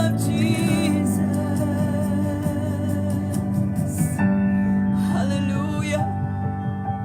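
Live church worship music: sustained chords from the band with a held, wavering sung note fading out in the first second, and a new chord coming in about four seconds in.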